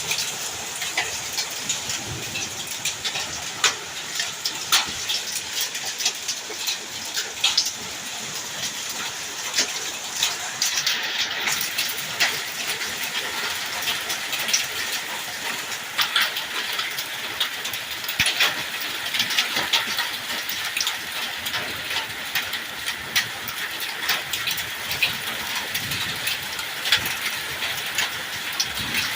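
Heavy rain mixed with hail in a severe thunderstorm: a steady rush of falling water with many sharp ticks of hailstones striking.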